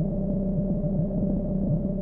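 Steady low drone with a fainter, higher ringing tone held above it: a sustained soundtrack drone.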